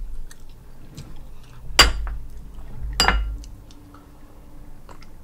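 Glass mug of iced soda clinking twice, about a second apart, each with a short ring, as it is picked up and handled on a glass tabletop.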